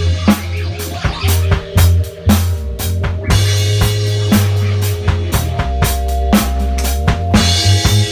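Dub music: a drum kit with kick, snare and rimshot hits, several a second, over a deep bass line of held notes, with sustained higher tones above.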